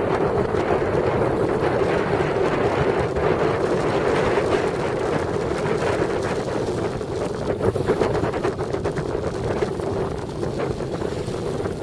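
Wind buffeting the microphone out on choppy water, with a steady hum underneath.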